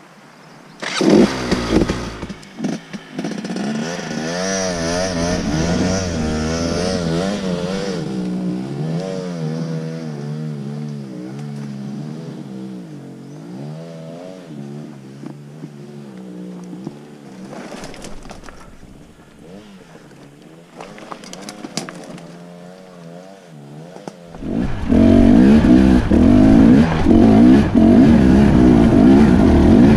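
Dirt bike engine revving hard, its pitch rising and falling as the bike climbs a steep, rocky hill, then fading past the middle. About three quarters of the way in, a much louder, closer dirt bike engine starts running hard.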